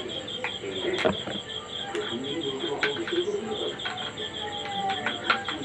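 Crisp crunching and cracking of a slate pencil being bitten and chewed, a string of sharp cracks with the loudest about a second in and near the end. A cricket chirps steadily behind it, about five pulses a second.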